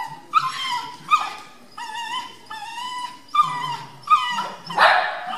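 Shetland sheepdog giving a string of about six short, high-pitched whining yelps, some sliding down in pitch, with a louder, harsher bark near the end.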